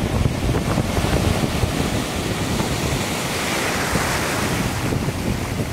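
Small surf breaking and washing through the shallows, a steady rushing wash that swells a little about three to four seconds in, with wind buffeting the microphone in a low, choppy rumble.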